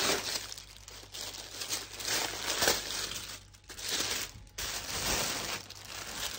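Tissue paper rustling and crinkling in bursts as hands unfold it from around a folded garment, with a couple of brief pauses.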